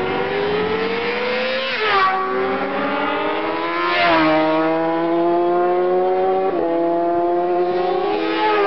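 Racing motorcycle engine accelerating hard up through the gears: the note climbs and then drops suddenly at each upshift, about four upshifts in all. It grows louder as the bike comes close near the end.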